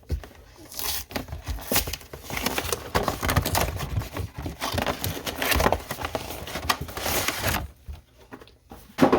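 Plastic packaging of Pokémon cards crinkling and tearing as it is opened by hand: a dense, irregular run of crackles that quietens about a second before the end, then one sharp click.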